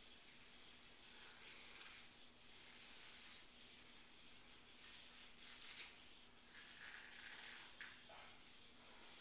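Near silence: faint room tone with a few soft, brief hissing rustles.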